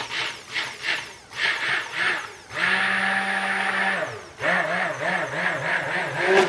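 Stick blender mixing a batch of soap oils and lye toward trace. It is first pulsed in short bursts, about three a second, then held on at a steady pitch for about a second and a half, then run again with its pitch wavering up and down as it is worked through the mix.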